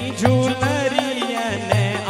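Rajasthani devotional folk music: a hand drum beats a steady rhythm of deep strokes about twice a second, under a wavering, ornamented melody line.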